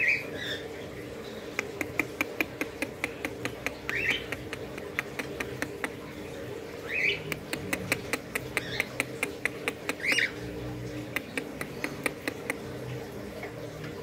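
A young parrot chick gives four short, rising squawks, about one every three seconds, over a run of quick, sharp clicks several times a second.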